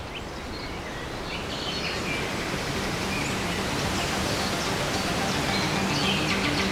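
Outdoor woodland ambience: a steady noise haze with small birds chirping now and then, slowly growing louder. Faint low music notes begin to come in during the second half.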